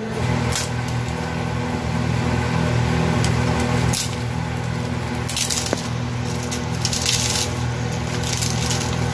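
Crisp fried dough rounds crackling and crunching as hands break them into pieces for churma, in several short bursts, over a steady low hum.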